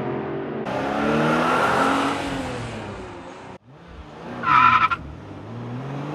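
A child imitating a racing car with his voice: gliding engine "vroom" sounds that break off suddenly about three and a half seconds in, then a short high-pitched tyre-screech.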